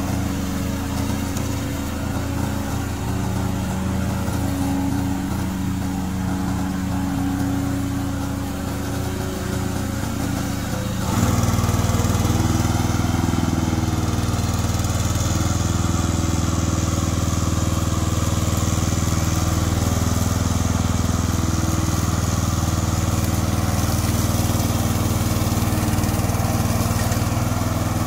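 Engine of a remote-control lawn mower running steadily. About eleven seconds in it gets louder and fuller and stays that way.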